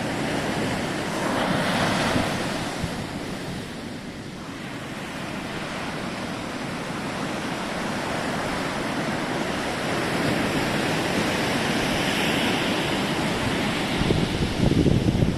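Ocean surf breaking and washing up the beach, swelling and ebbing, with wind buffeting the microphone.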